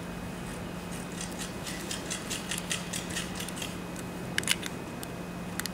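Light metallic clicking and ticking of hand tools and small screws on a K-126 carburettor as its throttle-plate screws are driven back in. Two sharper clicks come about four and a half seconds in, over a steady low hum.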